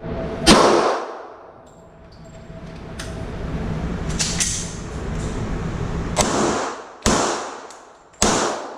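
Gunshots echoing in an indoor shooting range: a loud crack about half a second in, a few fainter shots around the middle, then three more loud shots close together near the end.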